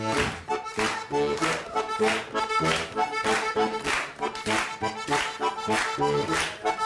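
Accordion playing the instrumental finale of a folk-style song, held chords struck on a steady beat about twice a second.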